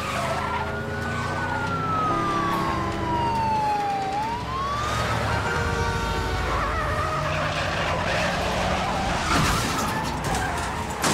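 Police siren wailing, its pitch sweeping slowly up and down, over the noise of speeding cars' engines and tyres. After about six seconds the siren gives way to louder engine and tyre noise, with a short sharp sound near the end.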